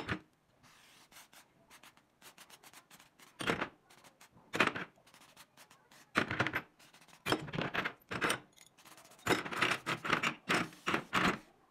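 Aerosol spray can with a straw nozzle fired at steel rifle parts in about eight short hissing bursts, most of them in the second half. Between the bursts, light clicks and clatter of the small parts being moved about on a plastic tray.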